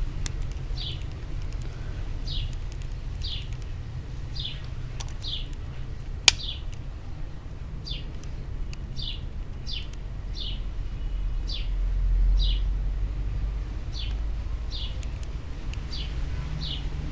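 A bird chirping over and over in short chirps that fall in pitch, often in pairs, about one every second. Under it is a steady low rumble, with one sharp click about six seconds in.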